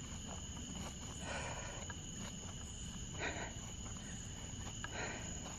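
Night insects, crickets, chirring steadily as two unbroken high tones, with a few soft rustles a second or two apart.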